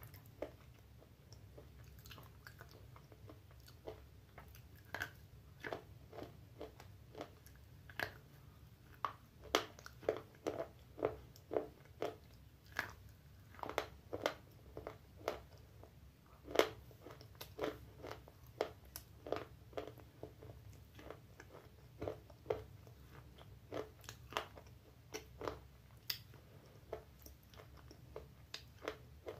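A slate pencil bitten and chewed close to the microphone: a run of sharp, gritty crunches, roughly one or two a second, loudest in the middle stretch.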